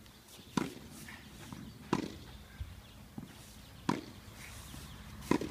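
Tennis ball struck by rackets in a back-and-forth rally: four sharp hits, one every one and a half to two seconds, with fainter knocks of the ball bouncing on the court in between.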